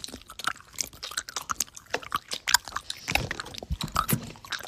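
Crunchy chewing: a run of irregular crunches and mouth clicks.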